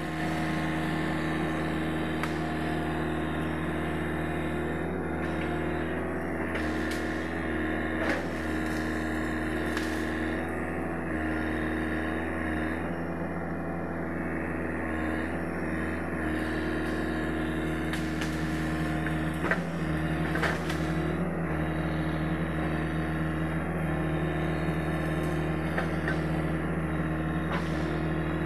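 Sany SY75C excavator's diesel engine running steadily under work, with a few sharp knocks, about eight seconds in and twice around twenty seconds in.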